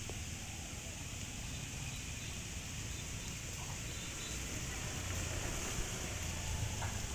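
Steady outdoor ambience: a low rumble with an even high-pitched hiss above it, and no distinct event standing out.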